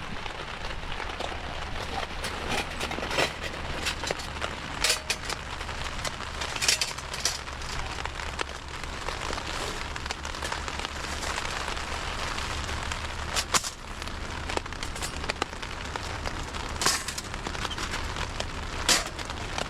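Steady rain with scattered sharp pops and crackles from a small wood fire burning in a portable fire pit.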